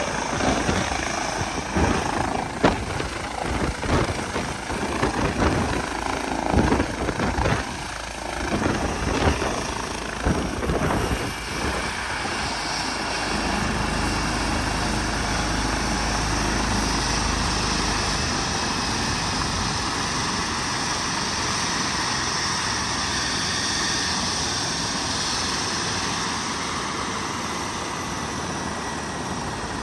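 Airbus H135 twin-turbine helicopter settling onto the helipad, its rotor downwash buffeting the microphone in uneven gusts for the first dozen seconds. After touchdown the rotor and turbines run steadily on the pad with a thin high whine.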